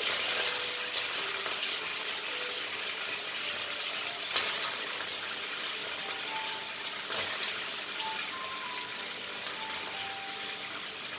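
Mutton pieces and chopped onion frying in a non-stick kadai over a gas flame: a steady sizzling hiss, with a light knock about four seconds in. A soft tune plays faintly underneath.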